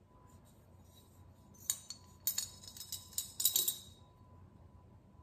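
A coin clinking and rattling inside a vintage coin bank as the bank is tipped and shaken. The clinks come in a few quick bursts through the middle.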